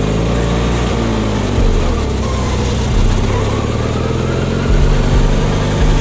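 John Deere riding lawn tractor's engine running steadily as the tractor drives along, its pitch dipping and rising slightly.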